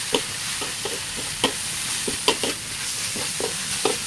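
Bitter melon, shredded fish and chillies sizzling steadily in a hot metal wok, stirred with a metal spatula that scrapes and clicks against the pan many times.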